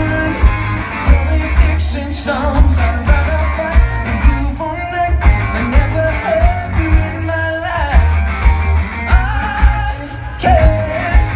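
Live rock band playing: a male singer's lead vocal over electric guitars, bass guitar and drums, with a heavy, booming bass as heard from the crowd on a phone.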